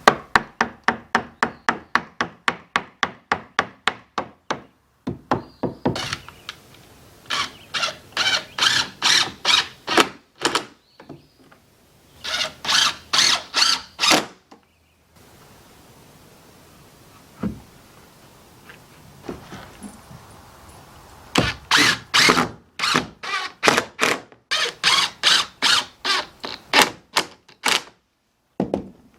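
Rapid, evenly spaced hammer blows on wood, about four a second, in several runs with short pauses between them, as the wooden side plates of a door frame are fastened in place.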